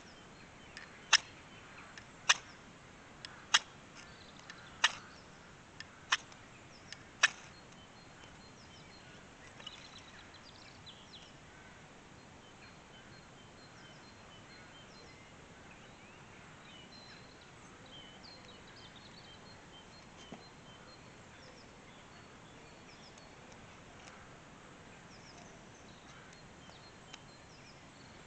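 A firesteel (ferro rod) struck with a scraper to throw sparks onto tinder: six sharp scrapes about a second apart in the first seven seconds. After that, faint bird chirps over quiet outdoor background.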